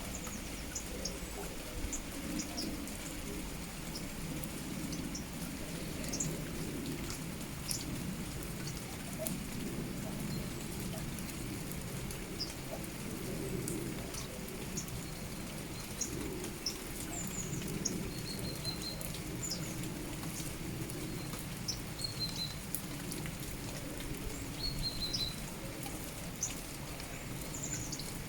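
Steady rain with drops ticking on a surface, and small birds giving short high chirps scattered throughout, several of them quick falling notes.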